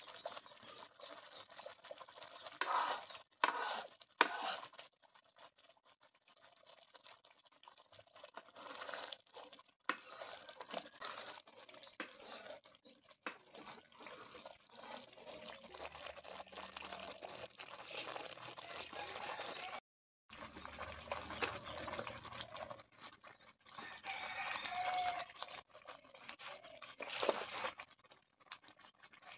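Cream boiling down into ghee in a steel pan, frothing with many small pops and sputters, while a steel ladle stirs and scrapes through it.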